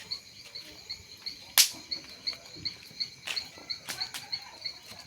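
A cricket chirping steadily, about three chirps a second, with several sharp cracks over it, the loudest about a second and a half in.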